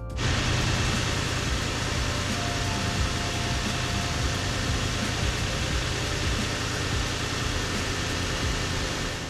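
Nissan Frontier's VQ40DE V6 idling steadily with a 3D-printed ABS intake tube fitted, heard close up in the open engine bay: a low steady hum under a lot of intake and fan hiss. It starts abruptly and fades out near the end.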